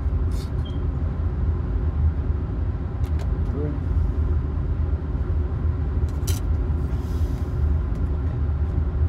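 Steady low hum of an electric blower running, with a few light clicks from a plastic petri dish and tweezers being handled.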